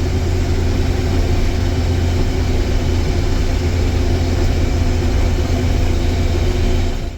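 Combine harvester running steadily while harvesting soybeans, a loud, even low machine hum of engine and threshing drive that drops out abruptly at the very end.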